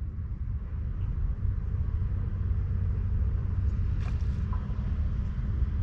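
Steady low rumble of wind buffeting the microphone, with a few faint clicks about four seconds in.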